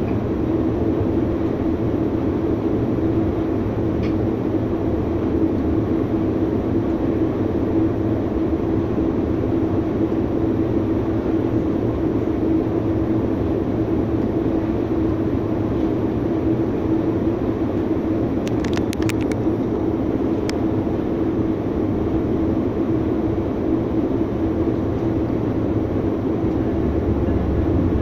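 Steady running noise heard inside a Metrolink commuter train coach as it rolls along the track, with a constant hum under it. A few short sharp clicks come about two-thirds of the way through.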